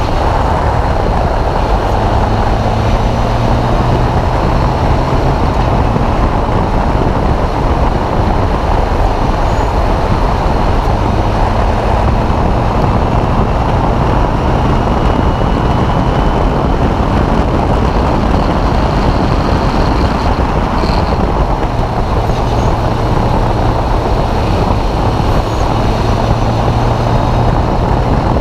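Open-wheel single-seater race car driven at speed on track, heard from an onboard camera: a loud, steady mix of engine noise and wind rush over the microphone.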